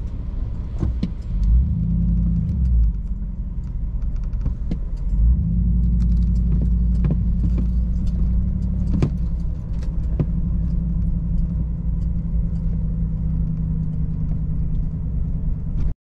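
2021 Chevrolet Silverado Trail Boss pickup crawling off-road. The engine runs under load and gets louder about a second and a half in, then again about five seconds in, with scattered clicks and rattles from the truck as it works through a rut.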